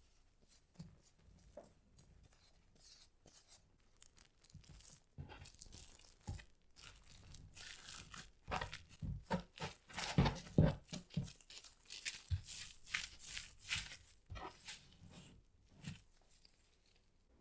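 Close-up, irregular crinkling and rustling from handling during cookie preparation, sparse at first, then busier and loudest about ten seconds in.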